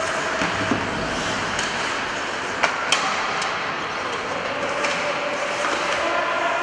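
Ice hockey game sounds: a steady hiss of skates on the ice, with two sharp clacks of stick and puck close together about two and a half seconds in.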